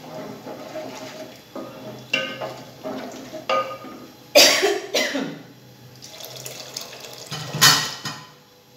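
Metal ladle stirring and scraping inside an aluminium pot of simmering chickpea curry, with liquid sloshing and short knocks against the pot. A few loud coughs come in the second half.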